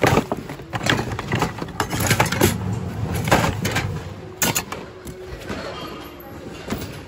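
Mixed secondhand goods clattering and rustling as a hand rummages through a plastic bin: irregular knocks of plastic toys, boxes and shoes against each other and the bin, busiest in the first few seconds and thinning out near the end.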